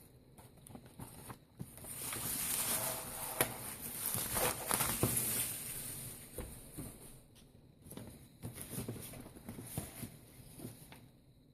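Packaging being handled and unwrapped: irregular rustling and crinkling, with small knocks and clicks, busiest in the first half.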